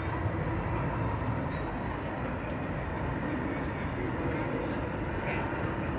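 New York City Subway train running on the IRT Jerome Avenue line: a steady, unbroken rumble of wheels on rails.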